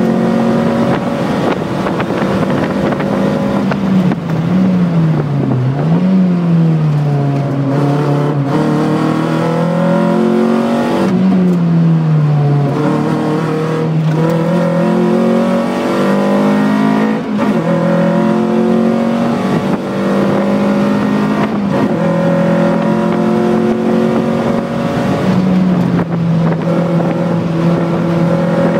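Lotus Elise engine heard from inside the cabin while driving hard on a race track. The revs drop and climb several times between about 4 and 13 seconds as the car brakes, shifts and accelerates through corners, then hold steadier under throttle.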